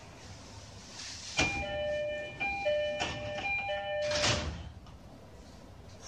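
Door-closing chime of an E531 series commuter train, a repeating two-note chime, followed about four seconds in by the sliding doors shutting with a thump.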